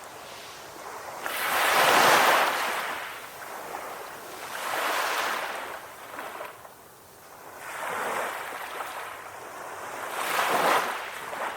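Ocean waves breaking and washing on a shore, in four surges that swell and fade, the loudest about two seconds in and near the end.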